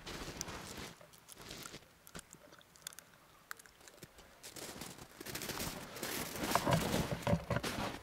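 Akita puppy biting and gnawing at a thin twig in the snow, giving scattered crunches and snaps. In the second half, louder, denser crunching of footsteps in snow.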